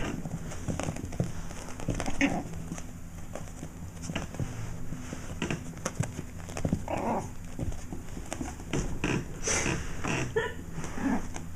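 A Yorkshire terrier puppy and a black cat play-fighting on carpet: irregular scuffling and soft knocks as they grapple, with a few short animal vocal sounds, one about two seconds in and several in the second half.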